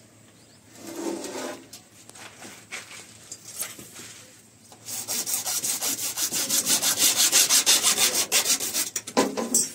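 Hand saw cutting through CPVC plastic pipe with rapid, even back-and-forth strokes, starting about halfway in and stopping shortly before the end; quieter handling and rubbing of pipe and fittings before it.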